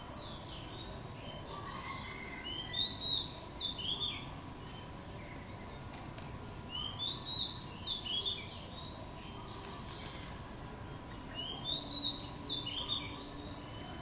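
Songbird singing: quick runs of high, chirping notes in three bouts about four seconds apart, over a steady background hiss.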